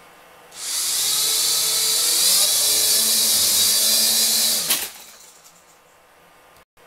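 Toy RC quadcopter's small electric motors and propellers spinning up to a loud, high whine, with the pitch climbing as the throttle opens. It runs for about four seconds, then cuts off suddenly with a sharp knock.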